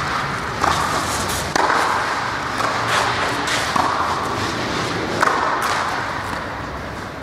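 Tennis balls being hit with rackets and bouncing on a clay court, several sharp hits spaced about a second or so apart, each with an echo from the large indoor hall.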